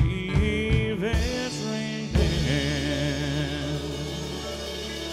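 Live country band playing the closing bars of a song: electric guitar licks with bent notes over drum hits, then a strong accented final chord about two seconds in, left ringing with a wavering vibrato.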